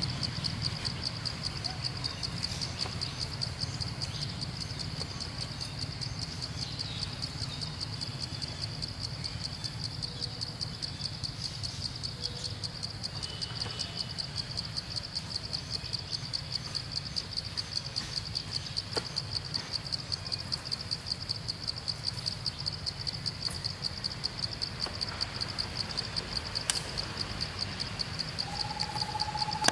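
Steady outdoor insect chorus, a fast-pulsing high buzz, over a low steady rumble. Near the end a bird starts a steady-pitched hooting call.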